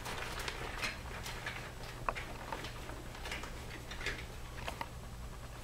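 Faint, scattered clicks and rustles of small plastic toys being handled and knocked together, over a low steady hum.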